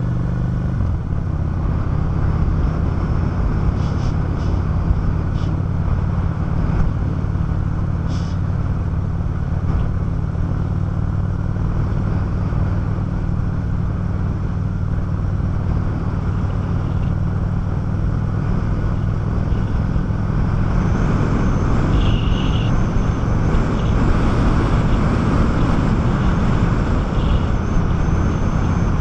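Honda 650 motorcycle engine running at a steady cruise, heard from on the bike, with a steady rush of wind and road noise. The noise grows a little louder about two-thirds of the way through.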